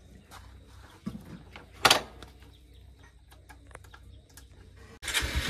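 A few small clicks and knocks, with one sharp, loud knock about two seconds in. Near the end it cuts suddenly to a motorcycle engine running.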